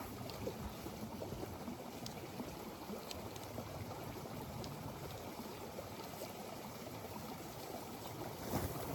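Running water: the steady rush of a stream, with a few faint ticks.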